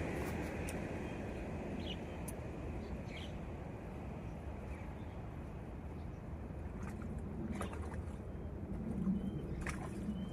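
Steady outdoor background noise with a few faint clicks, and a few soft, low coos near the end.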